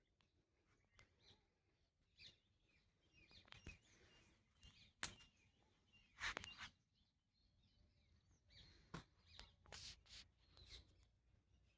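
Faint, scattered bird chirps against quiet outdoor background, with a few short louder clicks about halfway through and again near the end.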